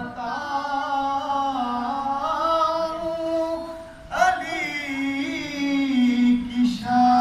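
A man singing unaccompanied into a microphone, a devotional Urdu song in praise of Ali: long held, wavering notes, with a short break and a new phrase starting about four seconds in.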